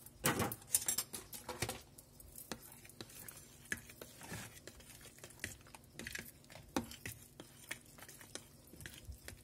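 Fork stirring and clinking in a mixing bowl of beaten eggs, chopped penne, diced cured meats and cheese. The clicks come thick and fast in the first two seconds, then thin out to scattered taps and soft scraping.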